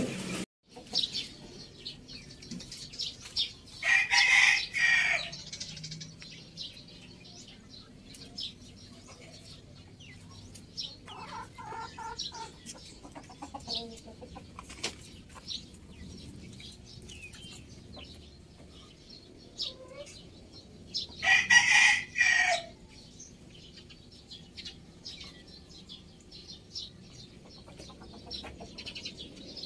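Rooster crowing twice, about 4 seconds in and again about 21 seconds in, with a fainter call between.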